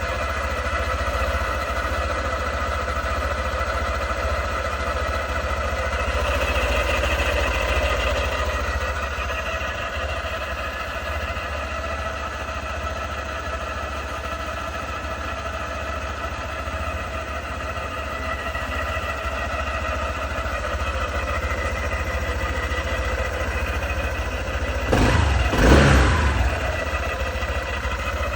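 Honda ADV scooter running steadily with a noise from its transmission, which the owner flags as abnormal at only 500 km from new. About 25 seconds in there is a brief, louder swell.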